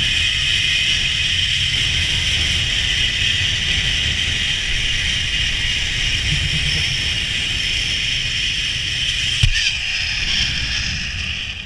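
Zip line trolley running along the steel cable, a steady high whir, with wind rumbling over the camera microphone; a single sharp knock about nine and a half seconds in.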